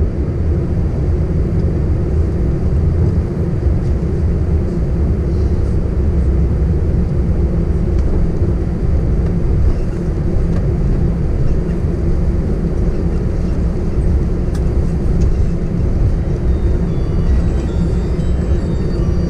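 Airbus A319 cabin noise while taxiing after landing: a steady, low rumble of the engines at idle and the aircraft rolling along the taxiway.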